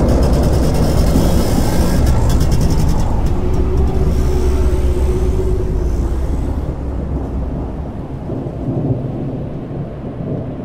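Deep rumble following an explosion, dying away over the last few seconds, with a scatter of sharp clicks in the first three seconds.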